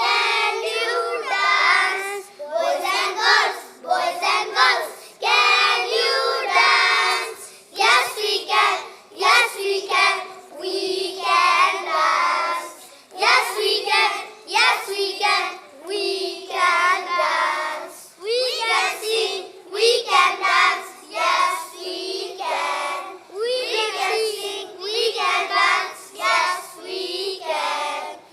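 A group of young children reciting a rhyme together in unison, phrase by phrase with short pauses between lines.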